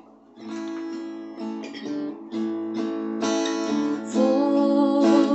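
Acoustic guitar strumming chords, about one stroke a second, getting louder partway through as the instrumental opening of a song.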